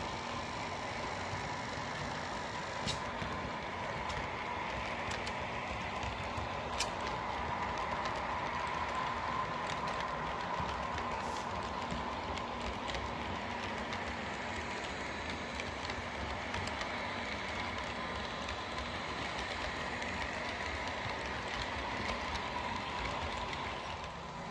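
H0 scale model train running along the layout track: a steady motor whine with scattered sharp clicks from the wheels on the rails.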